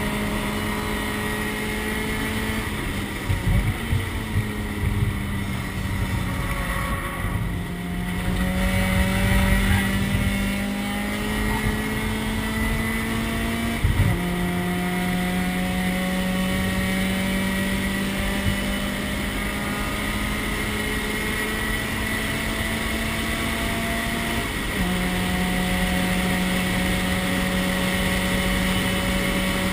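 Race car engine heard from inside the stripped cockpit, running under load with its pitch slowly climbing, then dropping sharply at two gear changes, about 14 and 25 seconds in. Between about 3 and 8 seconds in the engine note falls and turns rough and choppy, with a few sharp knocks.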